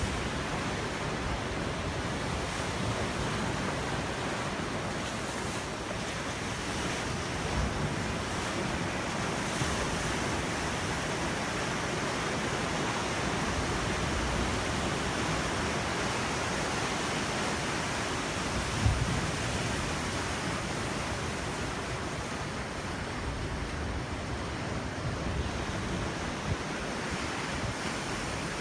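Ocean surf breaking steadily on a beach, with wind buffeting the microphone in a few brief low thumps.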